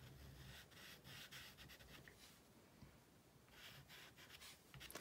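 Faint scratching of a soft dry pastel stick rubbed on rough-surfaced toned paper, in short strokes, easing off for about a second midway before starting again.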